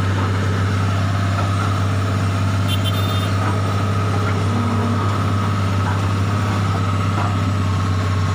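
Excavator's diesel engine running steadily with an even low hum.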